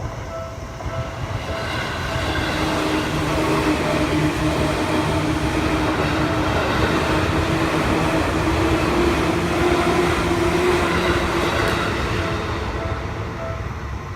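Seibu Shinjuku Line electric commuter train passing a level crossing: the rumble of the wheels builds over the first couple of seconds, stays loud through the middle and fades near the end. The crossing's warning bell rings in a steady repeating beat at the start and again as the train clears.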